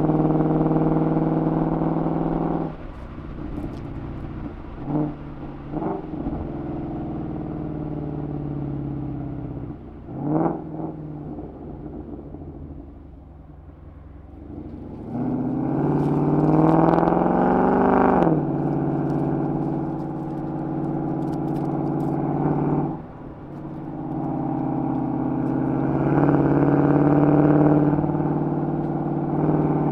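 Ford Mustang GT's 5.0 V8 through a Corsa Sport cat-back exhaust, heard from a camera mounted low outside the car. It cruises, then lifts off about three seconds in, with a few short blips of revs before falling quieter. It then accelerates hard with the pitch climbing for about three seconds before backing off suddenly, and pulls twice more.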